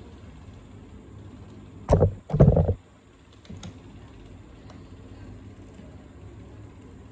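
Handling noise of hands working parts of a small homemade model on a workbench: light clicks and rustles, broken about two seconds in by two loud, short, low thumps a fraction of a second apart.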